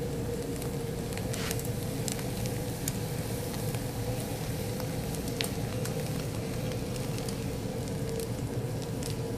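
Methanol fire tornado burning in a spinning mesh basket: a steady rushing flame noise with a few small crackles scattered through it.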